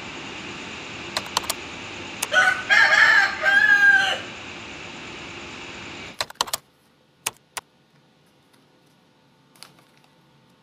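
A rooster crowing once, a long cock-a-doodle-doo about two seconds in, over steady background noise with a few sharp clicks before it. About six seconds in the noise stops abruptly, leaving a quiet room with a few sharp clicks.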